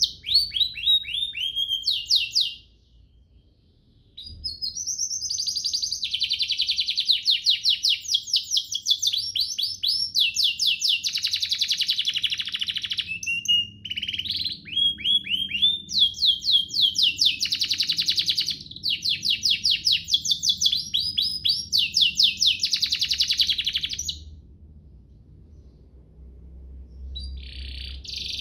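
Domestic canary singing long phrases of very rapid trills and fast repeated notes. The song breaks off briefly about two and a half seconds in, runs almost unbroken for the next twenty seconds, then pauses near the end before starting again.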